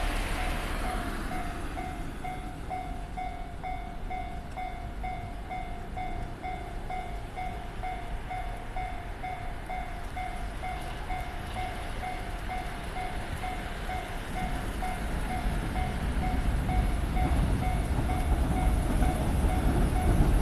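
Japanese level-crossing electronic warning bell ringing in a steady, even pulse of two tones. Over the last several seconds the low rumble of an approaching train, the 189-series electric multiple unit, grows steadily louder.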